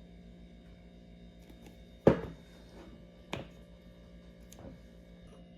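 A sharp knock of kitchen things on a hard surface about two seconds in, a softer knock just over a second later and a faint tick near the end, as honey is added to a mug of tea and the tea bag taken out. A steady low hum runs underneath.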